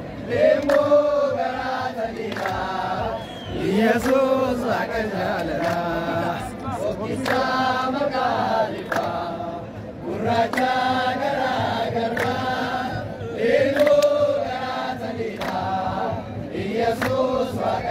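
A large group of young men and women singing an Oromo chant together, in short repeated phrases, with some hand clapping.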